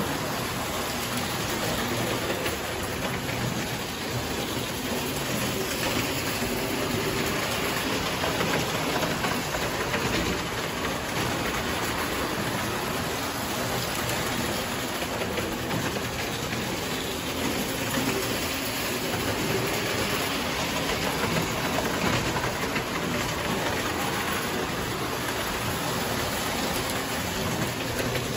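Toy trains running on metal model-railway track: a steady, continuous noise of wheels on the rails as the trains circle the layout and pass close by.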